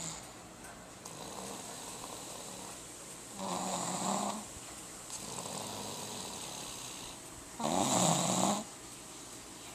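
Snoring: two loud snores about four seconds apart, each about a second long, with softer breaths between them.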